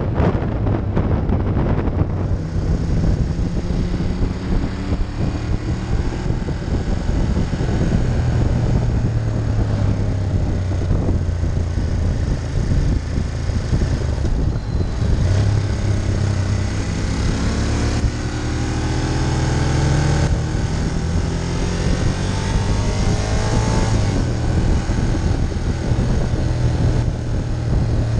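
Ducati Monster 1200's L-twin engine running steadily under way. Its revs climb about two-thirds of the way through as the bike accelerates.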